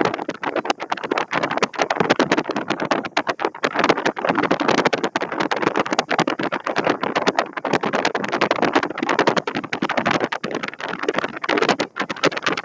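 Strong wind buffeting the microphone: a loud, rough rushing noise that flutters and gusts rapidly.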